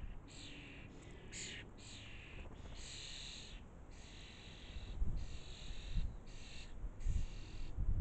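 Young starlings giving repeated harsh begging calls, about nine in eight seconds, each under a second long. A few low thumps come in the second half.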